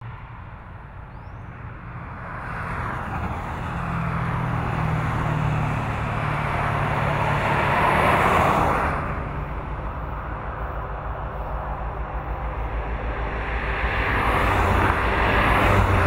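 CN Rail diesel freight locomotives approaching and passing, their engines growing louder to a peak about eight seconds in. A string of covered grain hopper cars follows, its wheels rolling on the rails with a fast rhythmic clicking.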